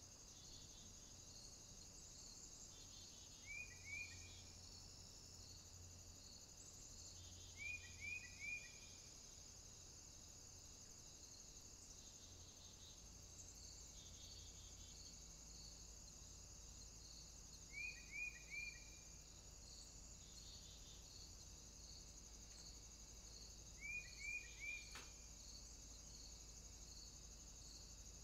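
Faint, steady chirring of insects with a regular pulse, broken four times by quick groups of three short, falling high chirps.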